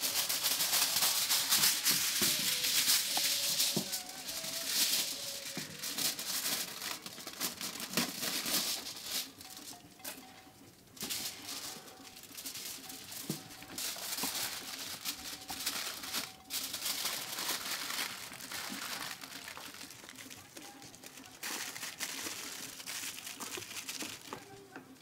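Aluminium foil unrolling, rustling and crinkling as it is folded and crimped by hand around a fish, in irregular bursts that are loudest in the first few seconds.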